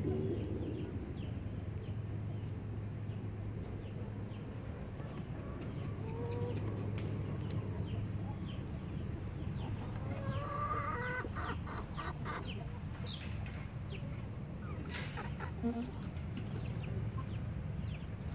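Chickens clucking quietly over a steady low hum, with a few short calls about six seconds in and again around ten to eleven seconds, and a couple of sharp clicks.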